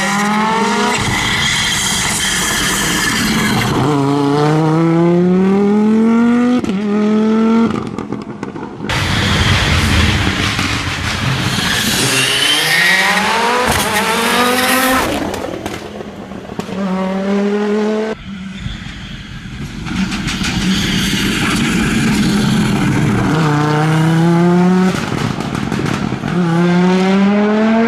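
Audi Quattro S1 rally car's turbocharged five-cylinder engine accelerating hard, its pitch climbing and then dropping back at each upshift, over several runs.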